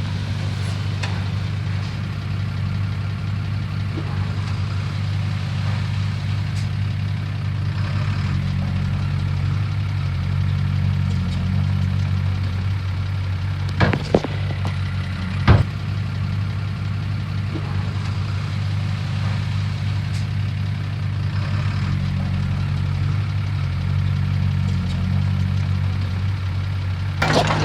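Bulldozer's diesel engine running steadily at a low, even pitch, with two sharp knocks about halfway through.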